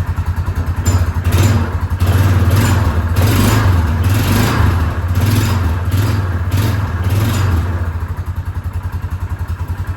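Yamaha Rhino 450's single-cylinder engine blipped on the throttle several times in quick succession, then dropping back to a steady idle for the last couple of seconds. The engine has a knock and has just been filled with heavier 20W50 oil to quiet it; the owner hears an immediate change.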